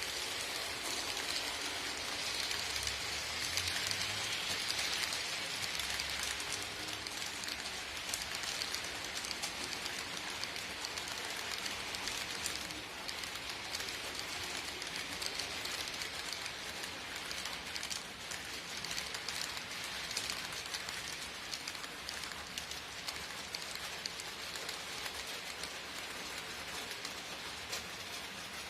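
HO-scale model train running on the layout's track: a steady rattling hiss of wheels on rail with many fine clicks.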